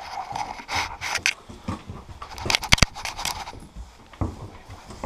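Scraping, rubbing and irregular clicks and clinks from a GoPro strapped to a moving dog's back, with the metal lead clip on its collar rattling. A quick run of sharp clicks comes about two and a half seconds in.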